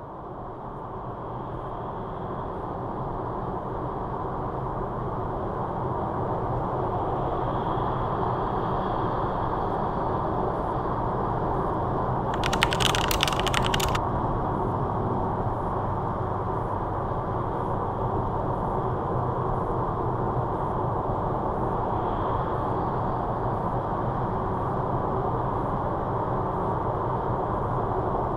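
Steady road and engine noise of a car travelling at motorway speed, heard inside the cabin, fading in over the first few seconds. About twelve seconds in, a brief burst of rattling clicks lasts a second or so.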